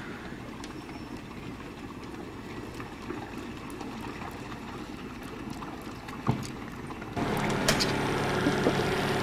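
Engine running with a low, steady rumble; a single knock about six seconds in, then about seven seconds in a louder engine hum cuts in abruptly and runs on at idle.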